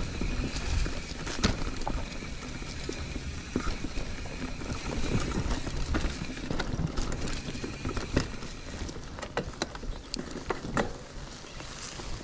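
Mountain bike rolling down a dry, leaf-covered dirt singletrack: steady tyre and trail noise with a low wind rumble, broken by many sharp clicks and rattles as the bike jolts over roots and rocks.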